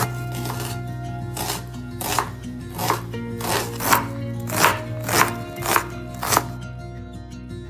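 Chef's knife chopping an onion on a wooden cutting board: a run of crisp cuts, about one or two a second, that stops near the end, over background music.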